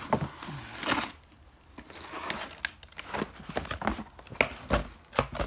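Cardboard boxes and toy packaging being handled and shifted: irregular rustling, scraping and light knocks.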